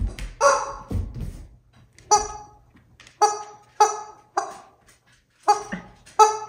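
Rubber squeaky chicken toy squeezed again and again in a Bernese mountain dog's jaws, giving short honking squeaks about once every half second to second, with a brief pause near the middle.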